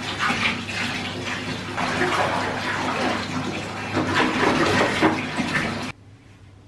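Milk poured from a plastic carton into a bath of water, splashing and churning as a hand stirs the water; the sound cuts off suddenly about six seconds in.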